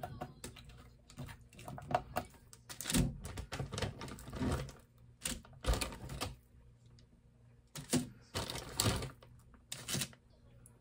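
A wooden spoon clicking and scraping rapidly against a glass bowl as a thick mayonnaise mix is stirred, for about the first two seconds. Then several short bursts of crinkling as a zip-top plastic bag is handled and frozen bread slices are laid down on parchment paper.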